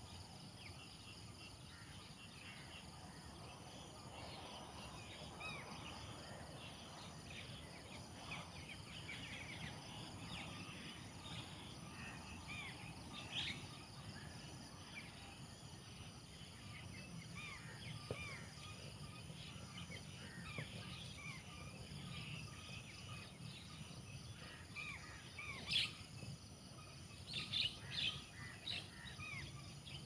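Outdoor morning ambience: many small birds chirping in quick, scattered calls over a steady chirring of insects, with a few louder calls near the end.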